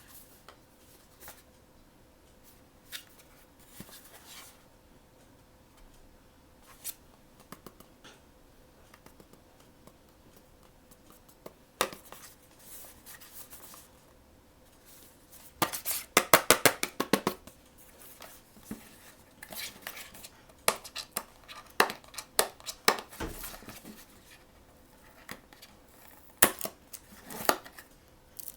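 Hands handling and opening blind-box packaging: scattered clicks, taps and scratches, with a dense run of rapid rustling and clicking a little past the middle.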